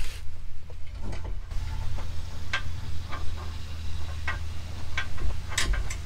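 Scattered metallic clicks and knocks from a new CV axle being worked into place by hand against the hub and suspension parts, about one every second, with a cluster near the end, over a steady low hum.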